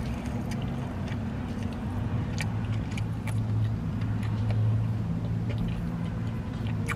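Low steady hum of a car idling, heard from inside the cabin. Over it come a few faint crunchy clicks of someone chewing a bite of fried chicken with her mouth closed.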